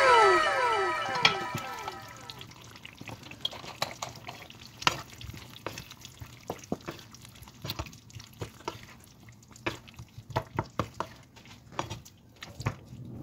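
Wooden spatula stirring and scraping chicken curry in a nonstick pan, with irregular soft knocks against the pan. Over the first two seconds a loud echoing sound of repeated falling tones fades away.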